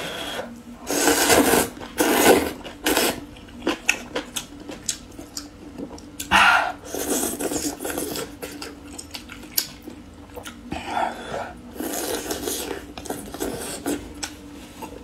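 A person eating spicy rice noodles in broth: long noisy slurps at intervals, with wet chewing and small mouth clicks in between.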